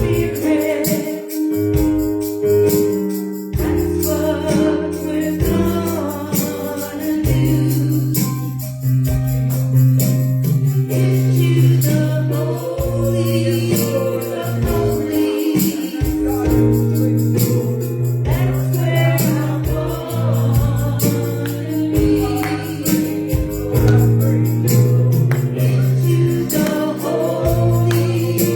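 Gospel worship music: voices singing over a band with held bass notes that change every few seconds, and a tambourine shaking.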